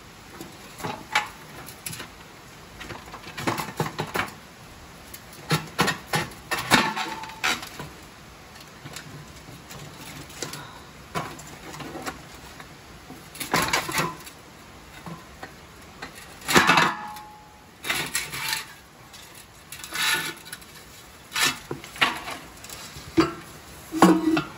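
Irregular metallic clanks and knocks, some ringing briefly, as the metal rear roller of a Swardman reel mower is lifted and worked out of its frame. The loudest clank comes about two-thirds of the way through.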